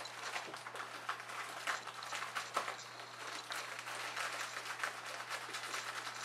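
Plastic bag of brown sugar crinkling and rustling as it is tipped and shaken over a glass measuring cup, with sugar trickling out: a run of small, irregular crackles.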